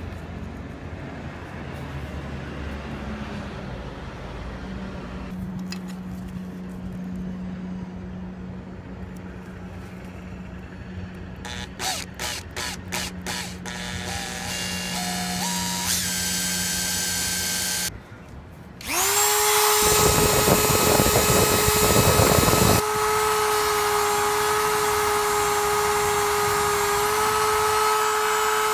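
Power drill boring through a plastic GoPro mount. Short trigger bursts come about twelve seconds in, then from about nineteen seconds a loud steady motor whine, rough and grinding for the first few seconds while the bit cuts, winding down at the very end.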